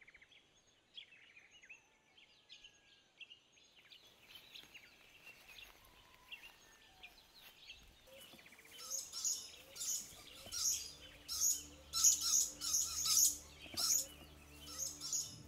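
Birds calling in tropical bush. Faint scattered chirps at first, then from about halfway a louder high-pitched chirping repeated about once or twice a second, with a shorter rising call beneath it.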